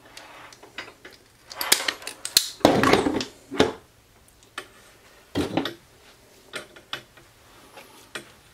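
Hand tools and small wiring parts being picked up and set down on a tabletop: irregular clicks and clatters of metal and plastic, with a few louder bursts of handling noise.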